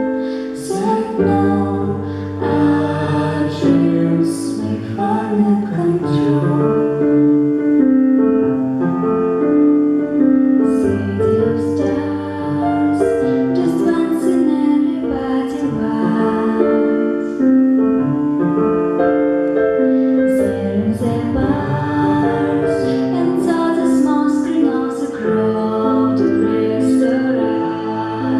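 Music: a female voice singing a slow melody over piano accompaniment.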